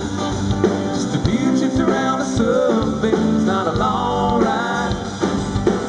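Live country-rock band playing with acoustic guitar, electric guitar and drums, a melody line of bending notes carrying on over the beat with no words sung.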